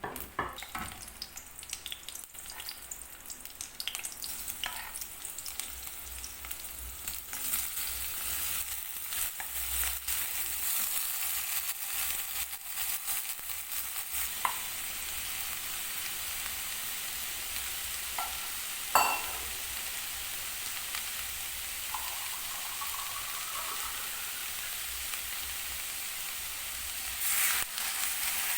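Food sizzling in hot oil in a pan. The sizzle starts suddenly and settles into a steady hiss, with scattered clicks of stirring. About two-thirds of the way through comes one sharp, ringing clink of a utensil against the pan.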